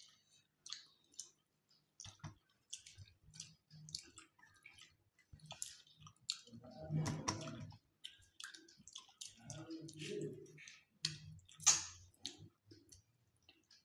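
Close-miked eating sounds: wet chewing and lip-smacking clicks, many small ones in quick, irregular succession, from people eating rice and fish curry by hand. Brief low hums from a voice come twice, about halfway through and again a few seconds later.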